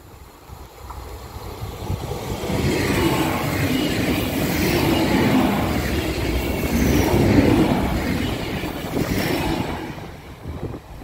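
An erixx regional passenger train passes close by, its wheels running on the rails. The sound builds from about two seconds in, stays loud through the middle and fades near the end as the train pulls away.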